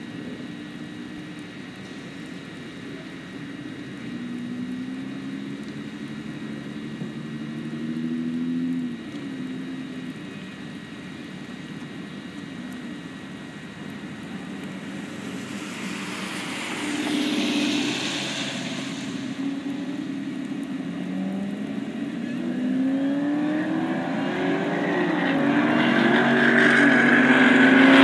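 Supercharged V8 engines of a Jeep Grand Cherokee Trackhawk and a Dodge Charger SRT idling and revving at the start line, with a burst of hiss partway through. Then they accelerate hard on a wet drag strip, the engine pitch climbing and dropping back with each gear shift and growing louder toward the end.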